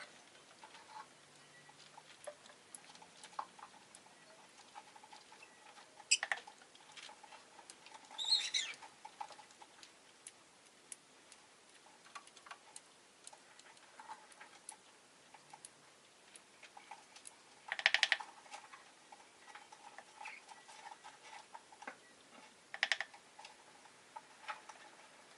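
Rosy-faced lovebird giving four short chirps, about 6, 8, 18 and 23 seconds in, among scattered soft ticking and tapping sounds.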